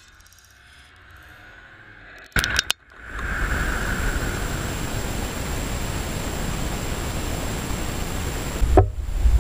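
A quick cluster of sharp cracks about two and a half seconds in, then a steady loud rushing hiss on an outdoor camera microphone, with one sharp click near the end.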